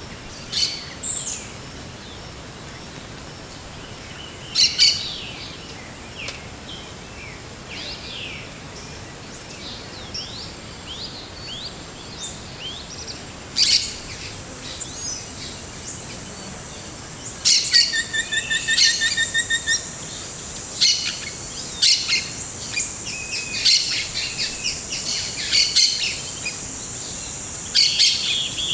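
Several forest birds calling: short chirps, up-and-down whistles and sharp notes from different birds, with a fast rattling trill a little past halfway. From about halfway through, a steady high-pitched hum runs under the calls.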